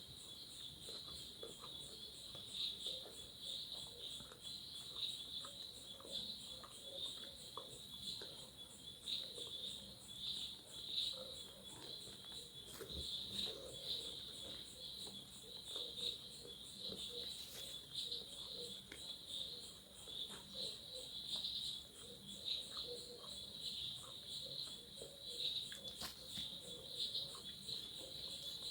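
Insects chirping steadily in a continuous pulsing trill, with faint small clicks and eating sounds scattered through it.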